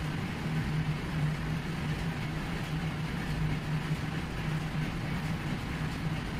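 Steady, unchanging low hum with an even hiss over it, a constant background drone in the room.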